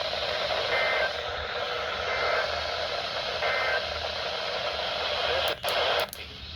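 Weather radio receiver hissing with heavy static from a weak NOAA Weather Radio signal, with three short, faint bursts of two-tone SAME alert header data buried in the noise. The static briefly drops out twice near the end.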